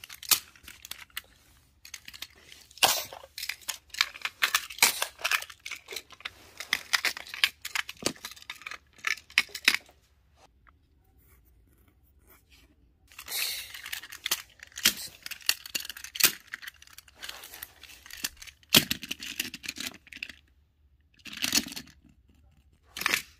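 Small toy cars being handled and pushed about by hand: scattered clicks, knocks and rustling scrapes, broken by a few seconds of near silence about ten seconds in.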